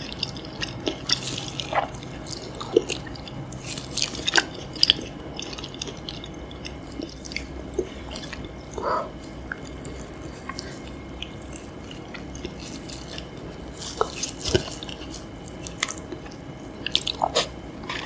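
Wet, close-up chewing and lip smacking as chicken feet in spicy sauce are eaten, with irregular sharp clicks and squishes.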